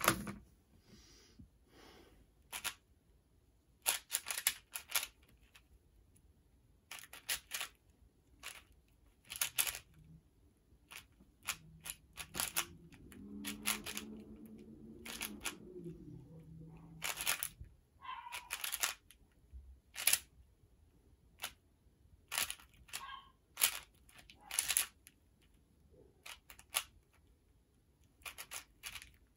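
Twisty puzzle being turned and handled by hand: scattered sharp plastic clacks and clicks, coming in short irregular clusters with gaps between them.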